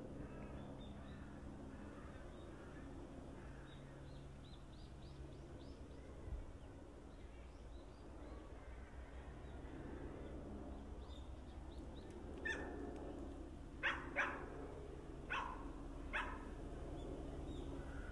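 A dog barks about five times in short, sharp barks in the second half, the loudest sounds here. Underneath is a low, steady hum from a Tokyu 8500 series electric train moving slowly toward the camera after leaving the station.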